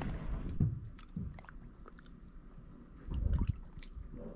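Handling noise as a fish is held and moved by hand: low bumps and rustling with a few faint clicks, loudest about three seconds in.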